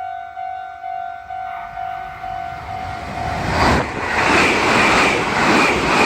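Japanese railroad crossing bell ringing its steady "kan-kan", about two strikes a second. About three and a half seconds in, a Meitetsu μSKY electric train rushes through the crossing, and its wheel and rail noise drowns the bell.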